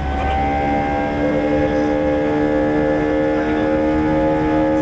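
Airbus A320 jet engine heard from inside the cabin at a window seat during the climb: a loud, steady drone with several held humming tones that come in about a quarter second in.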